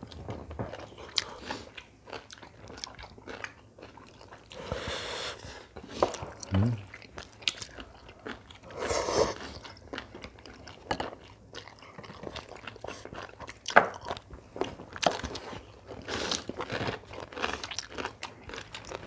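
People chewing and biting crisp home-cooked food, with irregular crunches and short sharp clicks throughout, and two longer noisy sounds about five and nine seconds in.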